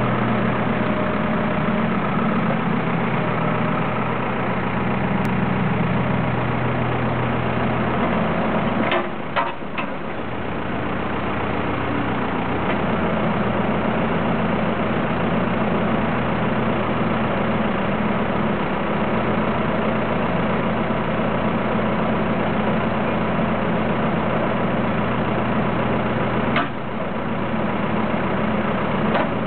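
Kubota KX161-3 mini excavator's diesel engine running steadily while the boom and bucket are worked, with a few brief knocks about nine seconds in and one more near the end.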